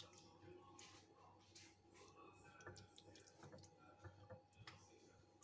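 Near silence, with faint wet squishing and small scattered clicks from hands rubbing chermoula marinade into the skin of a raw chicken.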